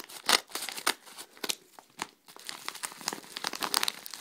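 A paper-and-plastic shipping envelope crinkling and rustling as it is handled and pulled open, in a quick run of sharp crackles that grows denser in the second half.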